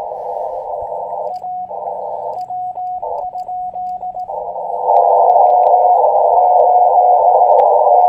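Shortwave transceiver audio through a small speaker: steady receiver hiss narrowed by a CW filter, broken from about a second in by a short run of Morse code sidetone, one steady tone keyed in dots and dashes from a paddle. The hiss comes back between the elements, and returns louder about five seconds in.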